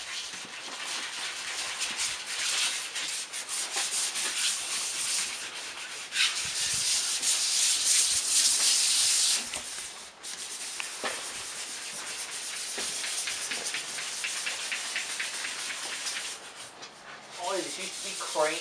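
Sandpaper worked by hand over a car's painted body panels, a dry scratchy rasp that grows louder for a few seconds midway. After that it turns to quick back-and-forth strokes, several a second.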